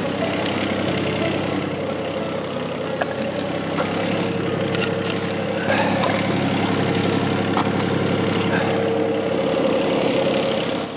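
Volvo EC20 mini excavator's diesel engine running steadily while it powers a hydraulic log splitter. The engine gets louder about six seconds in and eases off near the end, with a few knocks of split wood.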